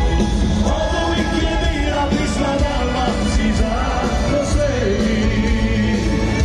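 Live band music with singing, heard from within the audience of a large arena, with strong bass.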